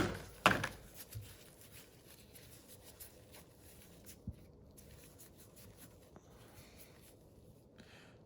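Two sharp metal clinks near the start as small hand tools are handled and set down, then faint handling and rustling with a few light ticks.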